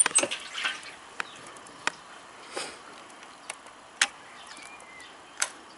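Keys jingling briefly on the ignition key ring in the first moments, then a few isolated light clicks spread through the seconds that follow.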